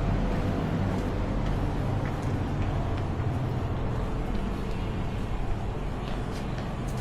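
Steady low rumble of an engine running nearby, easing off a little in the second half, with faint scattered clicks over it.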